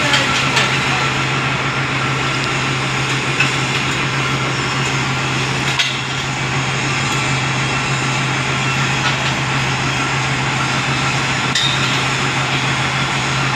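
Steady low machine hum under a continuous hiss, with a few sharp clicks and knocks, typical of an arc welding job.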